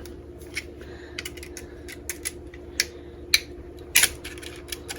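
Knife blade picking and scraping at the rubber of a 1957 Johnson outboard's upper crankcase seal, clicking against the metal around it. It makes a string of small, sharp, irregular clicks, with a quick cluster near the end.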